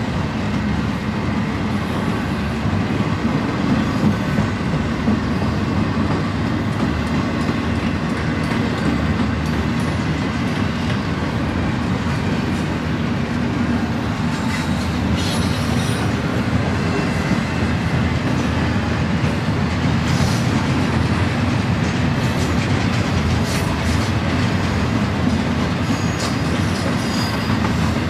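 Double-stack intermodal container cars rolling past: a steady, unbroken low noise of steel wheels running on the rails.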